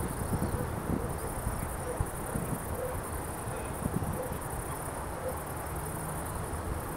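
Crickets trilling steadily as a high, fast-pulsing buzz, with an irregular low rumble and small thumps underneath.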